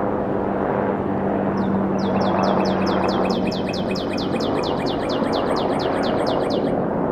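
Steady drone of an aircraft engine, with a bird trilling over it: a rapid run of short falling chirps, about five a second, starting about two seconds in and stopping near the end.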